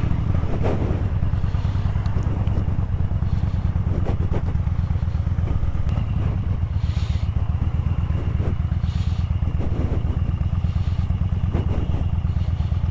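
Yamaha Bolt's air-cooled V-twin engine running steadily at low revs.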